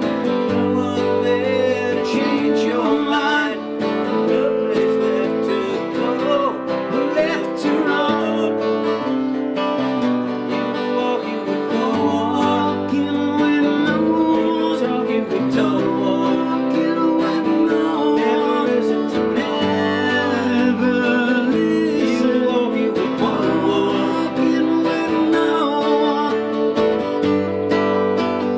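Two steel-string acoustic guitars played together, strummed and picked through chord changes in a folk-country tune.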